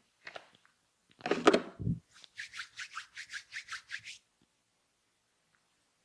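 Massage hands rubbing quickly over skin. A louder, deeper rub comes about a second in, then about a dozen quick strokes at roughly six a second, which stop about four seconds in.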